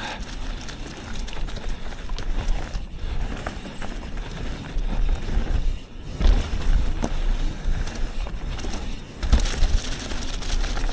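Yeti SB 150 29er mountain bike riding downhill on a dirt trail: continuous tyre and wind rush with a low rumble, broken by occasional knocks and rattles from the bike over bumps.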